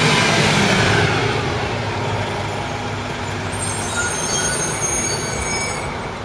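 RTS city transit bus passing close by and pulling away down the street, its engine and tyre noise loud at first and fading steadily as it goes.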